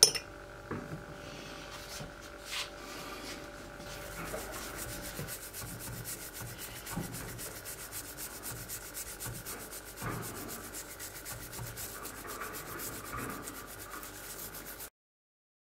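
A toothbrush scrubbing a small keum boo metal piece with baking soda in the palm: a continuous run of fast, fine brushing strokes. It starts about four seconds in, after a sharp knock at the very start, and cuts off abruptly near the end.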